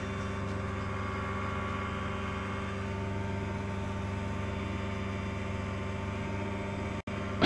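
Challenger ultralight's two-stroke engine and propeller running at a steady drone in level flight, heard from the cockpit. The sound drops out for an instant near the end.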